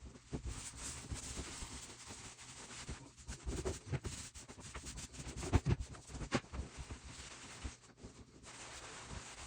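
Stain being rubbed into a hardwood floor by hand: a soft scratchy scrubbing with scattered light knocks and bumps against the boards.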